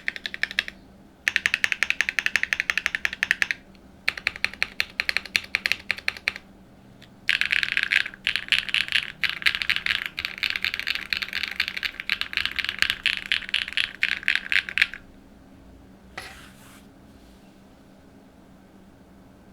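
Typing on a Cycle7 mechanical keyboard with an aluminium plate, Sarokey Strawberry Wine V2 switches and NK Spellbook keycaps: four runs of fast keystrokes with short pauses between, the longest ending about 15 seconds in. One more brief keystroke sound follows about a second later.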